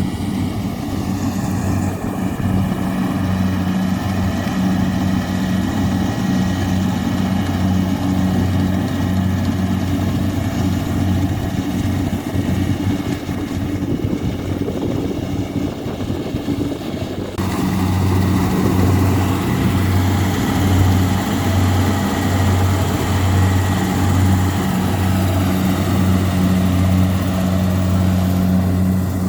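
Kubota DC70 combine harvester's diesel engine running steadily with a low, even hum. The sound changes abruptly about seventeen seconds in and carries on just as steady.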